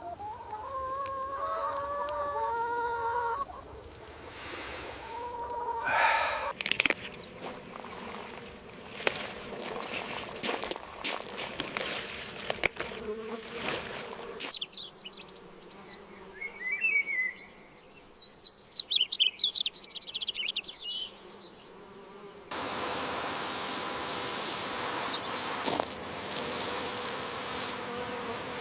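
A run of farmyard sounds: hens clucking for the first few seconds, then scattered light taps and clicks, small birds chirping, and from near the end a steady insect-like buzz.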